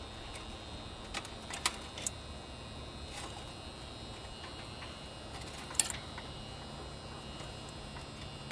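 Scattered sharp metallic clicks and ticks from handling wires and small parts while wiring a replacement capacitor, the two loudest about 1.7 and 5.8 seconds in, over a steady low hum.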